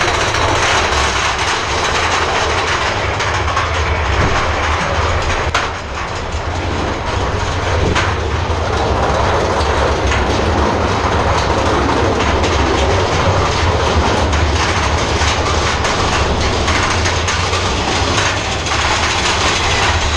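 A theme-park ride vehicle running on its track: a steady, loud rumble with a few sharp clanks, dipping briefly about six seconds in.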